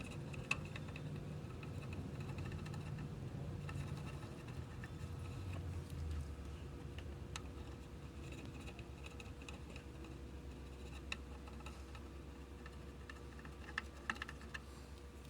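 Scattered light clicks and taps of small parts or tools being handled, over a steady low hum, with a few sharper clicks near the end.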